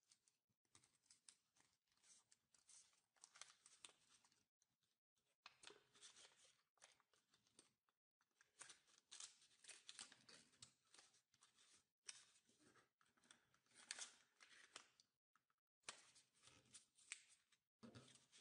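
Faint rustling and crinkling of origami paper being folded and pressed by hand, in short patches with brief gaps, along with a glue stick rubbed across the paper.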